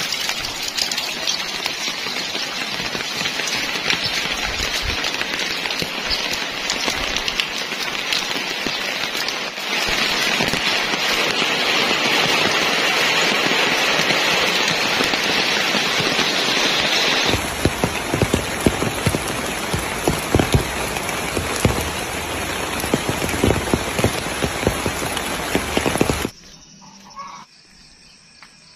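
Steady rainfall, a dense hiss of drops pattering on surfaces, changing character twice as the shot changes. Near the end it cuts off suddenly, leaving a quiet background with faint insect chirring.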